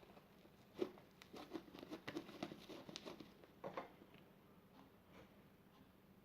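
Faint handling noises: a scatter of small clicks and taps over the first four seconds, then quieter.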